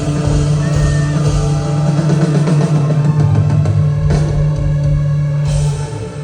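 Live rock band playing: drum kit, electric guitar and bass. It is loud, and the sound drops off a little before the end.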